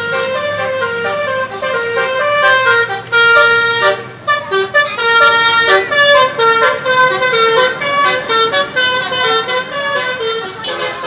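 A bus's musical 'telolet' air horn playing a tune of stepping notes, loud and nearly continuous, with a short break about four seconds in.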